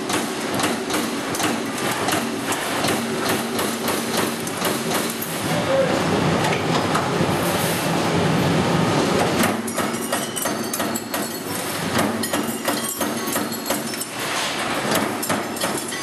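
Amada Pega 244 CNC turret punch press running, its ram striking in a rapid, continuous series of hits, with a denser, louder stretch near the middle.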